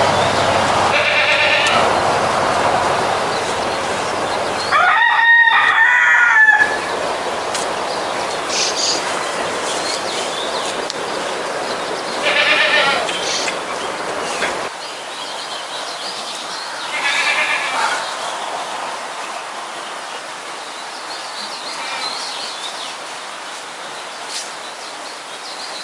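Farmyard animal calls: a rooster crows once, the loudest sound, about five seconds in, and livestock bleat several times with short, quavering calls spread through the rest.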